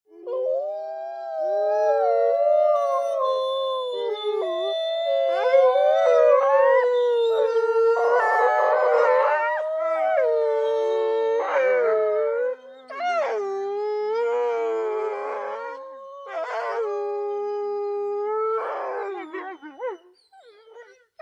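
Several wolves howling together in a chorus. Long, overlapping howls rise and fall in pitch, with rougher, broken calls mixed in. The chorus dies away near the end.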